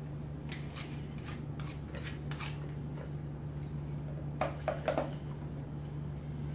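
Calico cat eating dry kibble from a stainless-steel bowl: light clicks, then a quick cluster of four louder clinks of kibble and metal bowl about four and a half seconds in, over a steady low hum.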